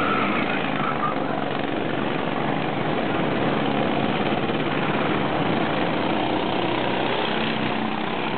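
Several go-kart engines running steadily as karts lap the track.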